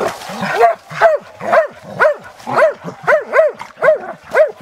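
A hunting hound barking steadily at a downed wild boar: a regular run of about nine short barks, roughly two a second, each rising and falling in pitch.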